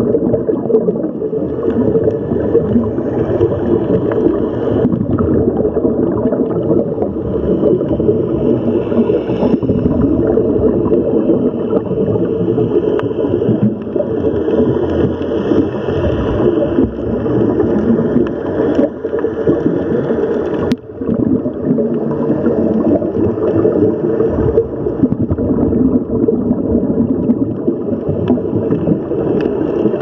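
Muffled underwater rushing and bubbling of water, dense and crackly throughout. A single sharp click comes about two-thirds of the way through.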